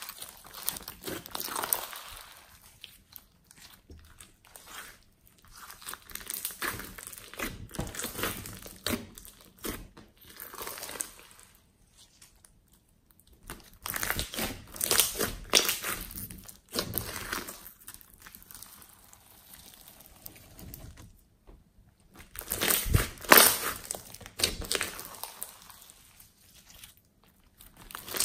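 Purple glossy slime with small beads mixed in, kneaded, stretched and squeezed by hand: sticky crackling and popping in bursts of a few seconds, with short quiet pauses between squeezes.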